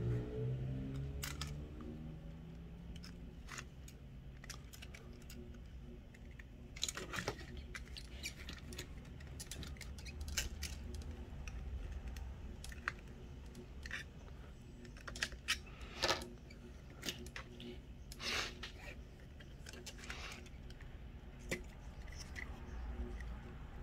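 Irregular small clicks, taps and scrapes of tweezers and fingers handling the plastic shell and small parts of an opened DJI Mini 2 drone, with a few louder scrapes scattered through, over a faint low hum.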